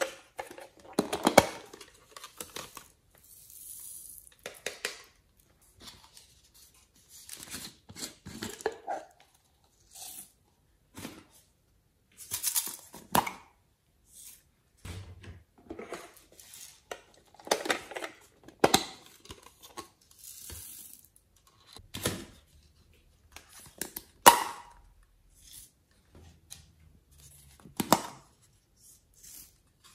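Hard plastic toy containers being handled, clicked open and shut, and tipped over a glass dish: a series of separate clicks, clacks and short rustles with pauses between, the sharpest about a second in and near three-quarters through.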